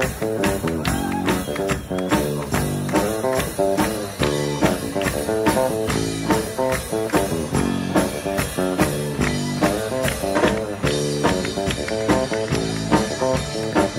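Live pop band playing an instrumental passage: guitar over a steady beat with tambourine, no singing.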